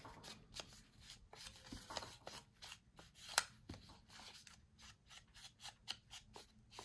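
Faint short, irregular scratchy strokes of paper being worked by hand, with a sharper click about three and a half seconds in.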